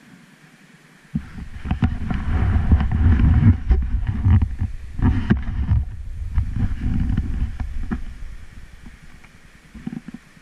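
Wind buffeting the microphone, with rumbling and sharp knocks as from riding over a rough, rocky road. It starts suddenly about a second in and dies down near the end.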